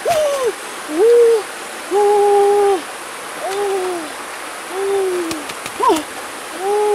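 A run of about seven hooting calls over the steady rush of a stream. Each call is a single pitched tone, some arching up and down, some held level for close to a second, with uneven gaps between them.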